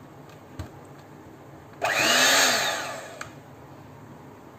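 Electric hand mixer running for about a second and a half, its whir rising and then falling in pitch, as its beaters mix milk into cake batter. Small clicks come before and at the end of the burst.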